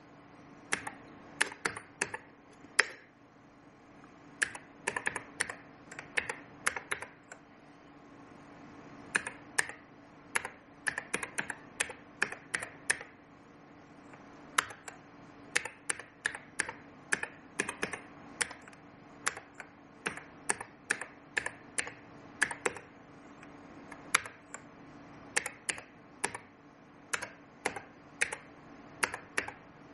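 Computer keyboard being typed on: single keystroke clicks in irregular bursts with short pauses between them, as a long web address is entered at a text console. A faint steady hum runs underneath.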